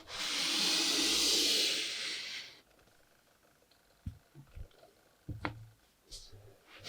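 A hissing rush lasting about two and a half seconds that fades out, followed by a few faint, light taps.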